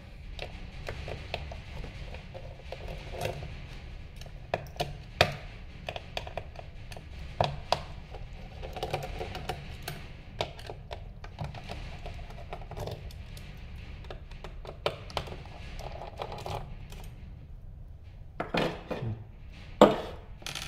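Screwdriver taking out the screws of a steel mounting bracket on a POS terminal's back panel: scattered small metal clicks and clinks, with a few sharper knocks near the end as the bracket comes off.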